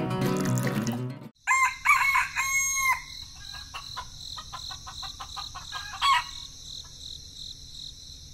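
Music stops about a second in, then a rooster crows loudly, followed by softer clucks and a short call near the end, over a steady high-pitched chirring background.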